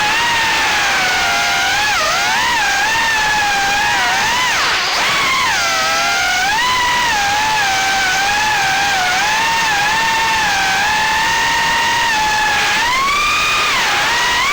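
Small FPV quadcopter's brushless motors and props (GEPRC 1206 4500kv motors spinning Gemfan 3028 three-inch propellers) whining in flight. The pitch rises and falls continually with throttle, over a steady hiss of rushing air.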